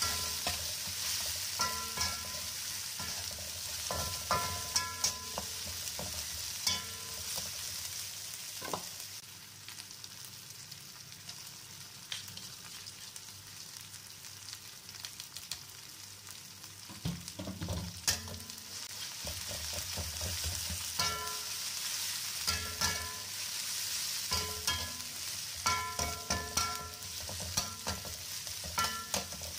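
Spice paste frying in oil in a black pan, sizzling steadily, while a metal spatula stirs and scrapes, its strikes on the pan making sharp ringing clicks. The stirring eases off for several seconds in the middle, with a dull thump, then picks up again.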